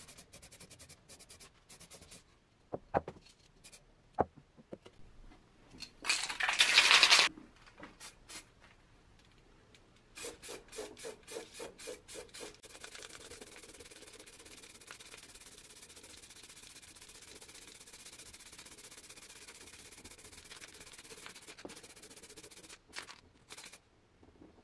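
Aerosol spray paint can in use: a couple of knocks, then one loud hiss of spray lasting about a second. A few seconds of quick rattling follow as the can is shaken, then a long, fainter steady hiss of spraying that stops near the end.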